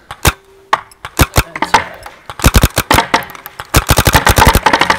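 Paintball marker firing: a few single shots, then fast strings of shots about two and a half seconds in and again near the end.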